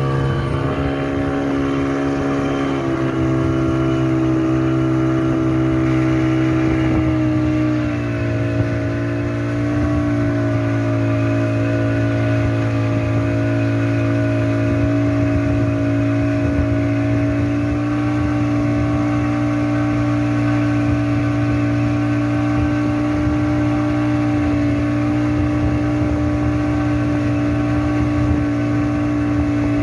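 Boat outboard motor running steadily at speed while towing a banana boat; its pitch shifts slightly a few seconds in and again about eight seconds in, then holds steady.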